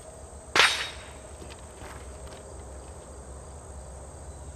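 Steady high-pitched insect chirring, crickets, with one sharp, loud crack a little over half a second in that fades quickly.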